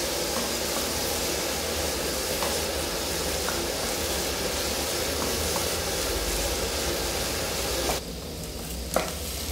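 Prawns and masala sizzling with a steady hiss in a non-stick kadai over a gas flame, with a few faint scrapes of a wooden spatula, as the fry is cooked down dry. The hiss drops away about eight seconds in, and a single knock follows.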